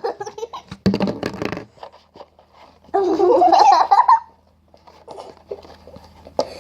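Slime being squished and kneaded by hand in a bowl: wet crackling clicks and squelches, with a loud wavering squeal lasting about a second near the middle.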